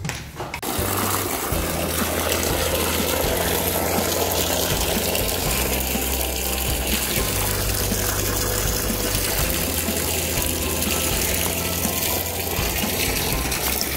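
Water gushing steadily from the discharge pipe of a newly installed borewell submersible pump, starting about half a second in: the pump is running and delivering water.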